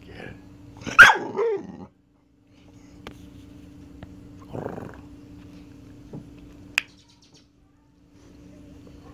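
A dog gives one loud bark about a second in, followed by a short wavering whine; after that only faint rustling and a few small clicks.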